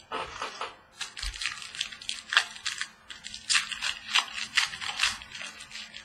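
Trading cards being handled and flipped through by hand: a quick, irregular run of crisp papery clicks and rustles.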